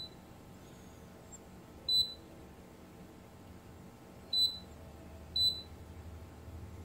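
KAIWEETS KM601 digital multimeter beeping: short, high, identical beeps, one about two seconds in and two more close together a little after the middle, each time the probes touch test points on the inverter board.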